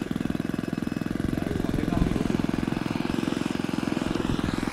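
Engine of a radio-controlled scale Zero fighter model running steadily with a fast, even firing beat as it comes in low on its landing approach.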